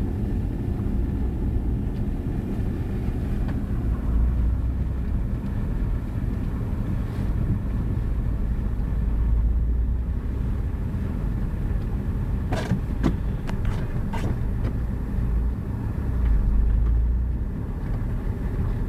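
Car driving slowly on a snow-covered road, heard from inside the cabin: a steady low engine and tyre rumble that swells a few times, with a short cluster of knocks about two-thirds of the way through.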